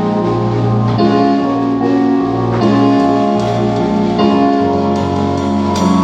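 Live band instruments, mainly keyboard with guitar, playing slow sustained chords that change about every second and a half, during a sound check; a sharp hit comes near the end.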